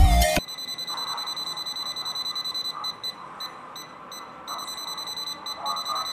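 Sigma 678 clamp meter's buzzer sounding a steady high-pitched beep with a few brief breaks, as its non-contact voltage detector picks up a live wall socket. Background music cuts off about half a second in.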